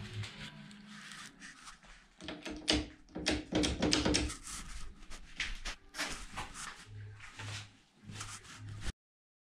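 Handling noises in a garage: scattered knocks, clicks and rustles with footsteps on a concrete floor. The sound cuts off suddenly shortly before the end.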